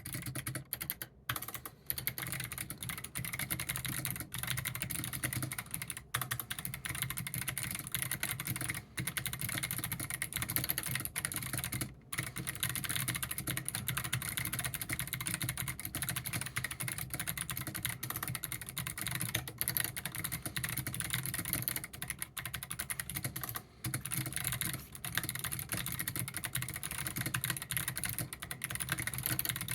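Fast, continuous typing on a Mini Cat 64 mechanical keyboard with clicky Kailh Box Pink switches, their keycaps dampened by black O-rings. The rapid key clicks pause briefly a handful of times.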